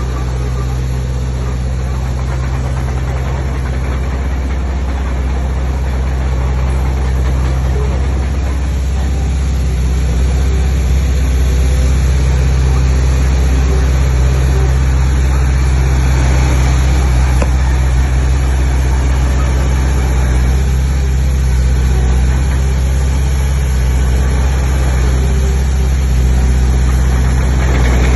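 Heavy diesel engine of an earthmoving machine running steadily with a deep low drone, growing slightly louder about ten seconds in.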